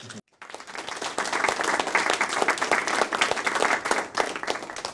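Audience applauding: a burst of clapping that swells up within the first second after a brief silence, holds steady, and begins to fade near the end.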